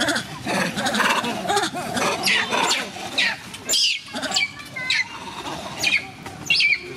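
Macaques giving a string of short, high-pitched squealing calls, each falling in pitch, about eight of them from about two seconds in.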